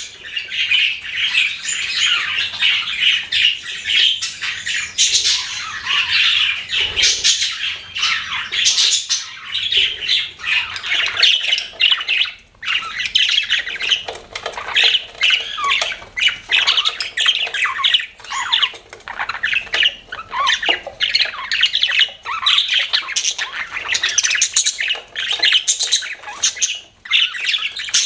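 Several budgerigars chattering and chirping continuously, a dense, overlapping mix of high twittering calls and squawks, with short lulls about halfway through and near the end.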